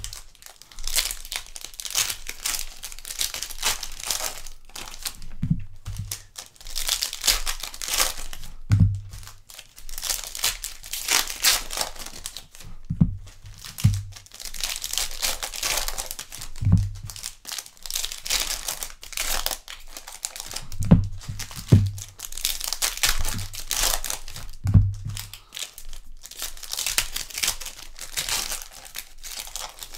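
Trading card packs being torn open by hand, the wrappers crinkling in repeated bursts, with several soft low thumps in between as packs and cards are handled.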